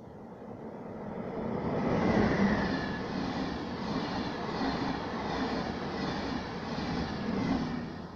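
Railjet express passenger train passing through at speed. The rumble swells over the first two seconds as the locomotive reaches the microphone, the coaches' wheels run steadily on the rails, and the noise dies away near the end as the last coach passes.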